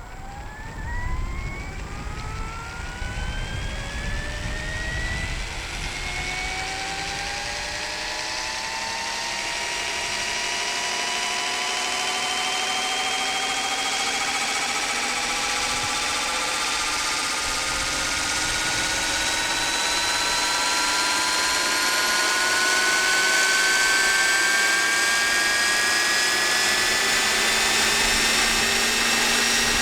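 Electric RC scale helicopter, a model Aérospatiale Lama converted from nitro to a 6S lipo, spooling up. The motor and drivetrain whine climbs slowly and steadily in pitch and grows louder, with a low rumble in the first few seconds.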